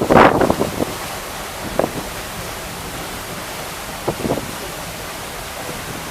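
Steady rush of wind and water aboard the paddle steamer Waverley under way, with wind buffeting the microphone. A louder burst comes in the first second, with shorter bumps about two and four seconds in.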